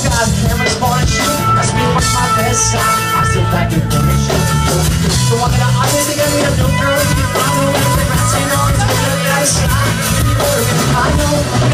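Live rock band playing through a PA: acoustic and electric guitars over a drum kit.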